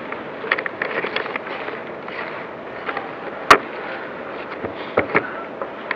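Airsoft gunfire: scattered small pops and clicks, a cluster of them in the first second and a half and two more near the end, with one sharp loud crack about three and a half seconds in.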